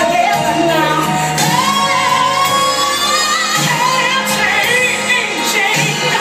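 Loud pop song with a lead singer, echoing in a large room; the voice holds one long, slowly rising note from about a second and a half in, then moves on to shorter wavering notes over a steady bass line.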